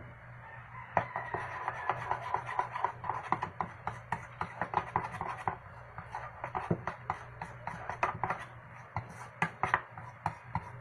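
A utensil stirring thick puto batter in a bowl, with a quick run of clicks and scrapes against the bowl, several a second, as food colouring is mixed in.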